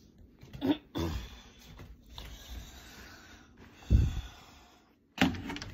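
Handling noise from a phone held against clothing: rustling and brushing, short breathy sounds, and a dull knock about four seconds in.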